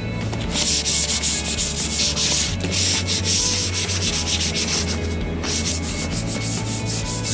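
Fast, rhythmic rubbing and scraping strokes on metal, about five a second, from hand work on the roof rack mounts.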